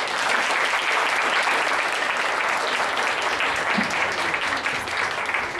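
Audience clapping steadily, thinning slightly near the end.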